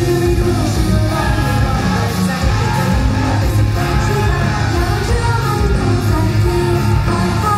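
Live band music with a singer's voice, loud and continuous.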